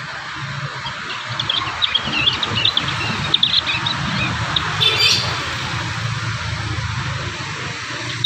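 Young prinias twittering in runs of short, high chirps, the rambling song of juveniles still learning to sing, with a louder burst about five seconds in. Under it runs a steady hiss and a low hum.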